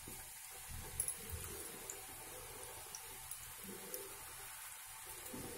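Rice-flour gavvalu (small dough shells) deep-frying in hot oil: a faint, steady sizzle with a few small crackles, the oil bubbling hard around the freshly added dough.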